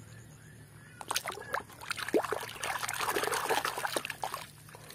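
Hand sloshing and scrubbing muddy plastic toys in a basin of foamy water, with irregular splashing and small knocks, starting about a second in.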